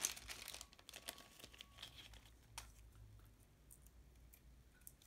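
Thin clear plastic bag crinkling and rustling in the hands, loudest right at the start and thinning to faint crinkles and ticks after about two seconds.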